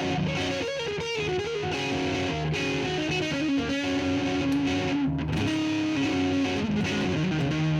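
Electric guitar with overdrive, a Monoprice Retrovision played through a 40-watt solid-state amp's drive channel, picking sustained notes and chords while a Donner looper pedal records and plays the phrase back. The loop comes round a tiny bit off the beat.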